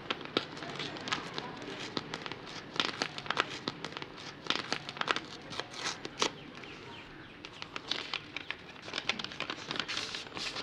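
A sheet of paper rustling and crinkling as it is handled, in quick, irregular crackles.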